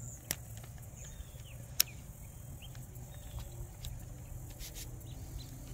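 Two sharp clicks about a second and a half apart, the second much louder, from the plastic lock tab and slide of a Primos Trigger Stick rifle rest being worked by hand. Faint chirping of insects goes on underneath.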